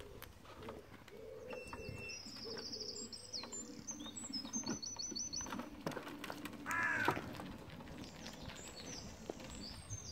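Birds singing, with repeated high chirps and trills and one louder, harsher call about seven seconds in.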